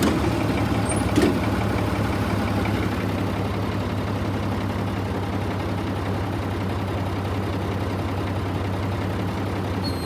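Tractor engine running steadily at a low hum, with one sharp click about a second in.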